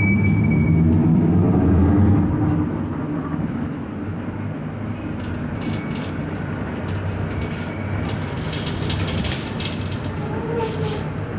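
Mercedes-Benz OF-1721 bus running under way, its diesel engine pulling hard for the first two and a half seconds and then easing off, with a growling differential and rattling from about five seconds in. A short rising-and-falling whine comes near the end.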